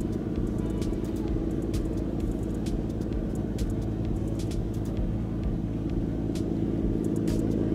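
Fast passenger ferry's engines running as it passes at speed, a steady low drone with a rumble beneath.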